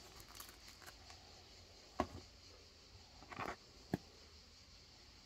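Faint handling of crusty split bread loaves on a wooden board: two light knocks about two seconds apart, with a short rustle between them.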